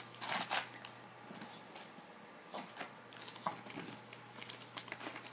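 A Yorkshire terrier tearing and nosing through Christmas wrapping paper: faint, scattered rustling and crinkling of paper on and off, a little stronger a few times.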